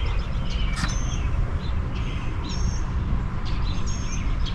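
Small birds chirping: short high chirps several times over a steady low background rumble.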